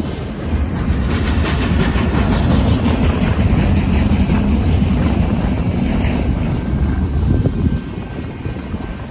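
Double-stack container well cars of a freight train rolling past close by: a steady rumble of steel wheels on rail with a rapid clatter running through it, easing slightly near the end.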